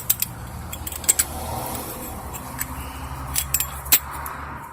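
Metal tool parts clicking and clinking in quick, irregular taps as a brake caliper piston compression tool and its round adapter are fitted against the caliper. A low steady hum runs underneath.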